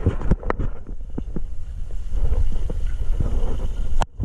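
Wind buffeting the camera microphone: a loud, uneven low rumble with a few scattered knocks, breaking off briefly just before the end.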